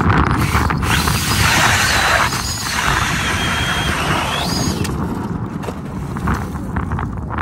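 Battery-powered Rapala Lite-Flite electric ice auger drilling through lake ice: a motor whine over the grinding crunch of the blades cutting ice, starting about a second in. Its whine rises in pitch just before it stops, a little under five seconds in.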